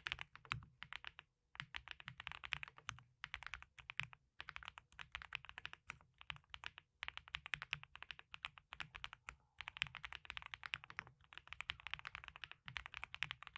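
Typing on a Null64 wooden keyboard with F1 switches and coffee-bean keycaps: quick, continuous keystrokes in runs broken by brief pauses.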